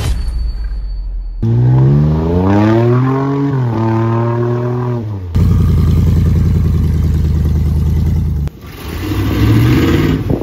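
Off-road vehicle engines in a run of short cuts: an engine revving up and settling, then a loud steady engine drone, then another engine revving up near the end.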